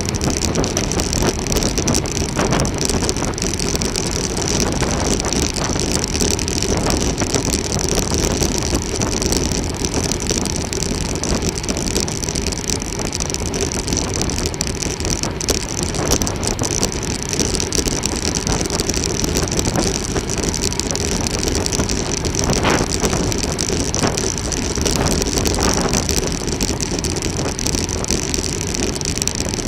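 Steady wind rush and road noise from a road bike ride, with wind buffeting the camera's microphone. A few light clicks come about three-quarters of the way through.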